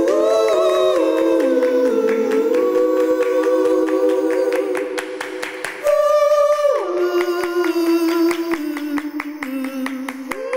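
Several voices sing a cappella in close harmony, holding long notes that shift in steps. About six seconds in, the sound switches abruptly to a single amplified female voice holding long notes that step down in pitch, with scattered sharp clicks.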